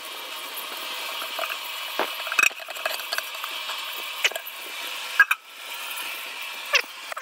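Rice being poured from a steel bowl into a large aluminium deg of boiling water: a steady rattling pour of grains, broken by a few sharp clinks of metal on metal.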